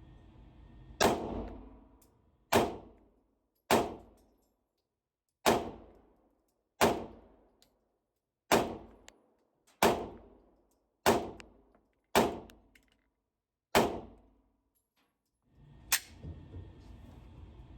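About ten slow, deliberate 9mm pistol shots from a Glock 45 fitted with a Radian Ramjet compensator, roughly one every second to second and a half. The pistol is running on its factory Glock recoil spring assembly.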